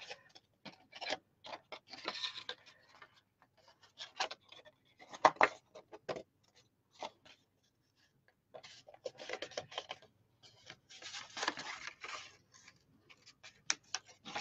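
White card stock being folded and handled by hand along its score lines: scattered paper crinkles, taps and rubs, with longer stretches of rustling about two seconds in and from about nine to twelve seconds.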